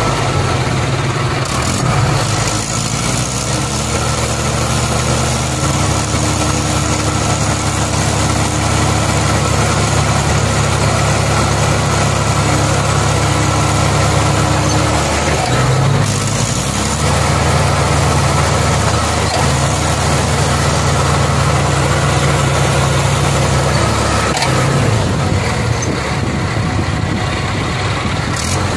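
Mahindra Arjun Ultra 555 tractor's diesel engine running hard under load as the tractor tries to drive out of deep paddy-field mud where it is stuck. The revs climb a couple of seconds in and hold, drop off briefly about halfway, then build up again.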